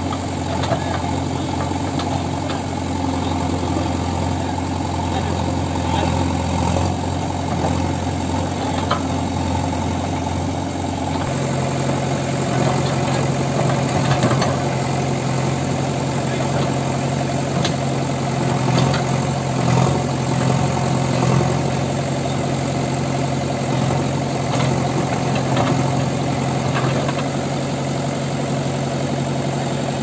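JCB 3DX backhoe loader's diesel engine running steadily while the backhoe arm digs. About a third of the way in the engine speed steps up and holds higher. Occasional faint knocks come from the bucket working the soil.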